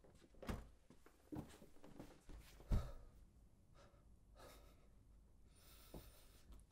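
A few dull knocks and thumps as a wooden front door is shut, the loudest about three seconds in, then a man's sigh near the end.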